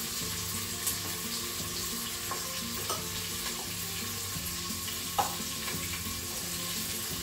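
Onions sizzling steadily as they fry in the inner pot of a Crockpot Express pressure cooker, with a few light clicks, the sharpest about five seconds in.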